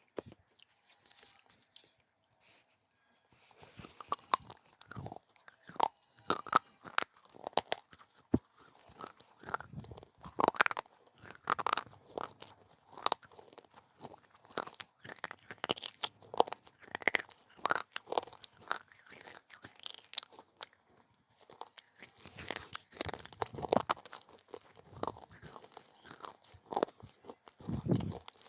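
Close-up crunching and chewing of hard baked clay pot pieces, bite after bite of sharp crackles. It is sparse for the first few seconds and pauses briefly about two-thirds of the way through.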